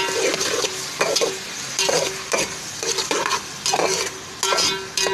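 A metal spoon stirs chopped tomatoes and onions frying in hot oil in a metal pot. The spoon clinks and scrapes against the pot about twice a second, with a short ring after each strike, over steady sizzling.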